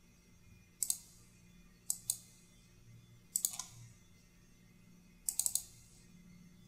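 Computer mouse clicking: four quick bursts of two or three sharp clicks, a second or so apart, over a faint low hum.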